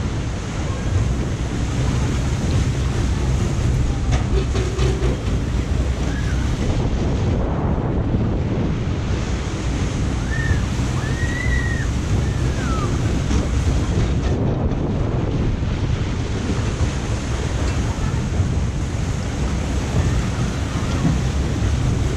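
Fast-flowing water rushing and churning through the whitewater channel of a jet-ski ride, a steady loud wash with a low rumble, with wind buffeting the microphone.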